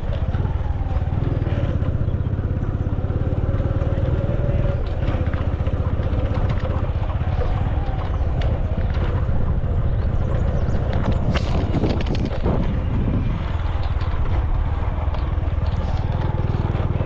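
A vehicle driving along a road: a steady low engine rumble with road noise, unchanging throughout.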